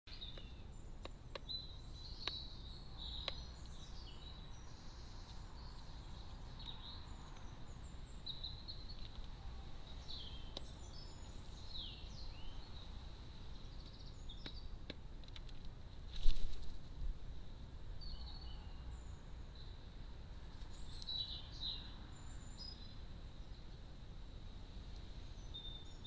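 Small songbirds chirping and trilling in the background over a steady low hiss, with scattered sharp taps and one loud knock about sixteen seconds in from a crow pecking mealworms from a plastic feeding tub.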